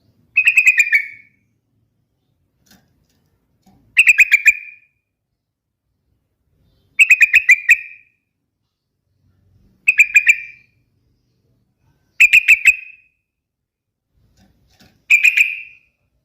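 Yellow-vented bulbul (trucukan) singing six short, bubbling phrases, each a quick run of five or six notes lasting under a second, about every three seconds.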